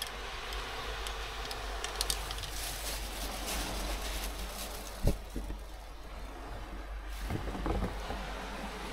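Steady low rumble of wind on the microphone outdoors, with scattered light clicks and knocks and one sharp knock about five seconds in.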